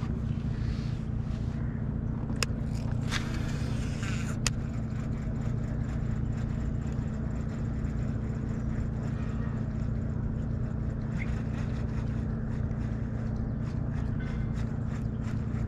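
A boat engine running steadily, with a few sharp clicks about two to four seconds in.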